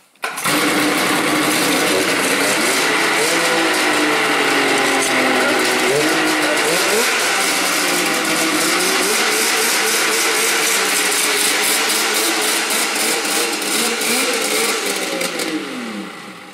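Polaris 600 XLT snowmobile's three-cylinder two-stroke engine running, its revs rising and falling unevenly. The sound cuts in suddenly at the start and dies away near the end.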